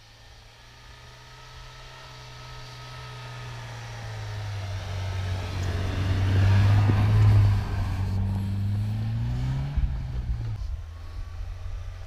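UAZ Patriot SUV's 2.7-litre four-cylinder engine driving past through deep snow. The engine note grows steadily louder as it approaches, with the tyres churning snow as it passes closest about halfway through. Near the end it revs up briefly, then falls away.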